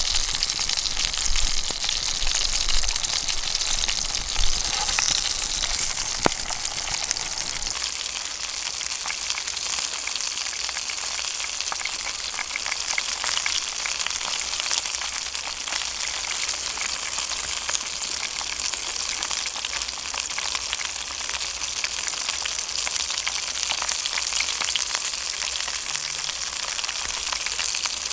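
Food frying in a pan over a campfire: a steady, dense sizzle with fine crackling throughout, and a single sharp click about six seconds in.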